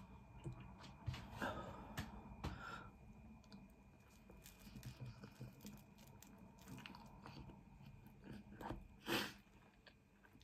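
Faint, close-up chewing and biting of garlic bread and tagliatelle, with scattered soft crunches and mouth clicks, and one louder click about nine seconds in.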